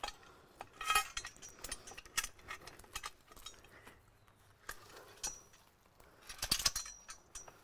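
Steel chain and fittings of a lever-action tree and post puller clinking and rattling as the handle is worked. There are two bunches of clinks, about a second in and near the end, mixed with sharp snaps of roots breaking as the tree is pulled out.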